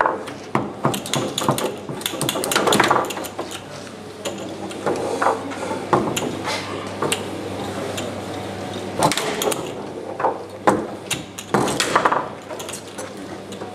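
Foosball being played on a Tecball table: the hard ball cracking against the plastic player figures and the table walls, and the steel rods clacking and sliding in their bearings, in irregular sharp knocks and rattles.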